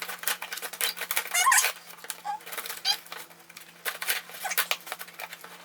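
A shipping box being opened by hand: a run of sharp crackles and rustles of packaging, with short squeaks about a second and a half in and again near three seconds in.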